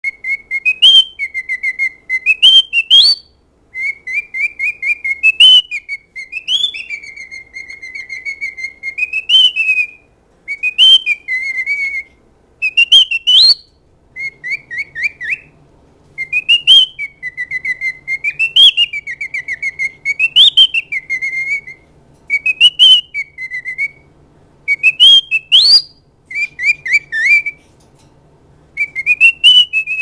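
Male cockatiel singing: short whistled phrases of warbling notes that jump upward at the end, repeated over and over with brief pauses between them, with sharp clicks mixed in.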